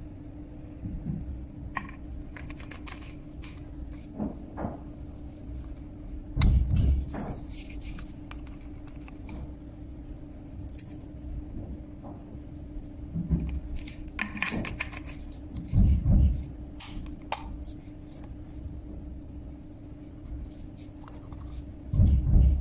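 Handling noise from a PE plastic bottle and a plastic pump dispenser being turned and fitted together: plastic rubbing and light clicks, with three dull thumps, over a steady low hum.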